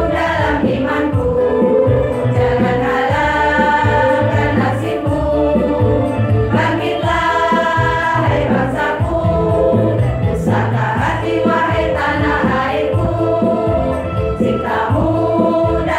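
Women's choir singing together in a religious choral piece, with a repeating low bass accompaniment under the voices.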